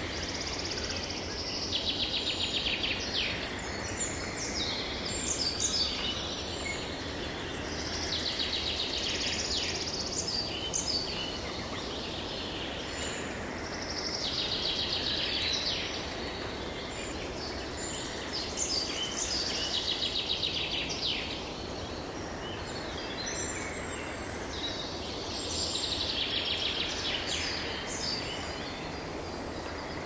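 Songbirds singing: high, rapid trilling phrases of two or three seconds each, recurring about every five seconds, over a steady background rush.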